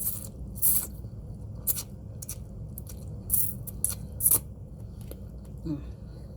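Eating sounds from a bowl of pho: a run of short, sharp smacks and clicks, about seven in the first four seconds, then quieter, over a steady low hum.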